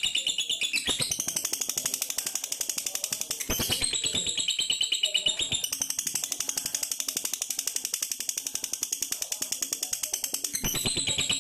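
Lovebird singing a long, rapid, high-pitched chattering trill (ngekek) that keeps going with only brief shifts, the sustained full-force delivery prized in a fighter lovebird, not broken up into stuttering fragments.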